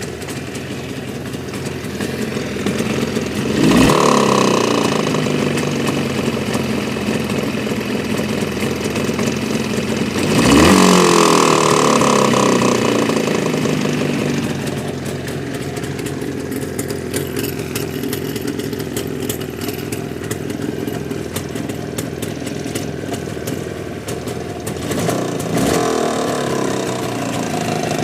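Vehicle engine idling and blipped up three times, the third rev smaller, run to show a knocking noise in the engine.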